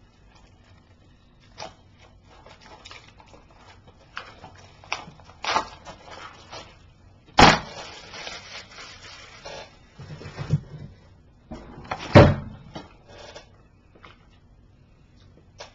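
Hands handling a plastic DVD case and its wrapping: scattered rustling and small clicks, with two sharp snaps or knocks, one about halfway through and one about three-quarters of the way through.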